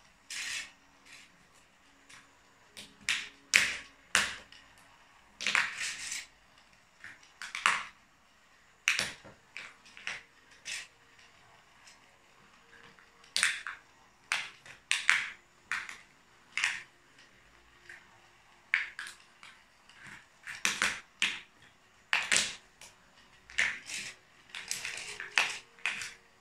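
Plastic toy train cars and track pieces cracking and snapping under high heels: a string of sharp, irregular cracks and crunches, some in quick clusters.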